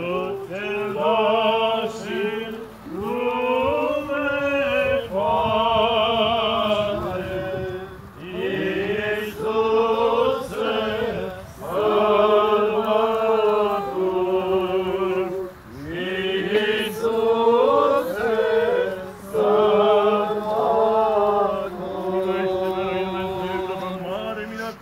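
A group of voices chanting an Orthodox hymn in phrases of a few seconds each, over a steady low held note.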